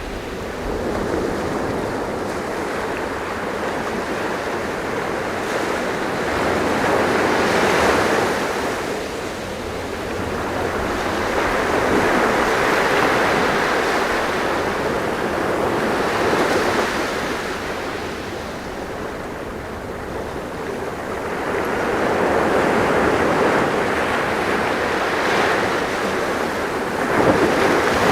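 Sea waves breaking and washing on a shore, a steady rush of surf that swells and ebbs every few seconds.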